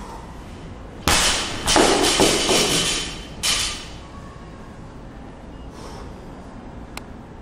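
A loaded barbell (115 lb) dropped from overhead onto a wooden lifting platform: a loud crash about a second in, the plates bouncing and rattling for about two seconds, then one more knock as it settles.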